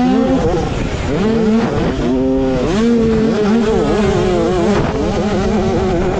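Two-stroke 65cc motocross bike engines racing: the onboard bike's engine rises and falls in pitch with throttle and gear changes, with another bike's engine running close alongside.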